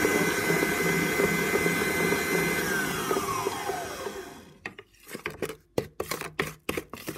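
Electric stand mixer whirring at high speed as its flat beater creams butter, with a steady whine. About three seconds in the whine slides down in pitch as the mixer slows, and at low speed a run of short clicks follows, about three a second.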